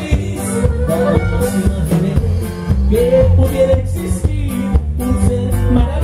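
A live norteño band plays a song through a PA: saxophone, twelve-string guitar and drum kit together.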